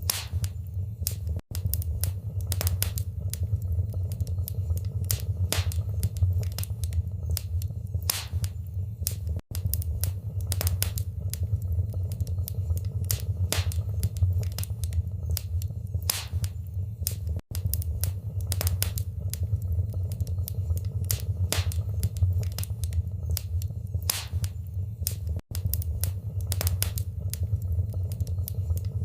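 Wood fire crackling in a fireplace: irregular sharp pops and snaps over a steady low rumble. The sound cuts out for an instant about every eight seconds.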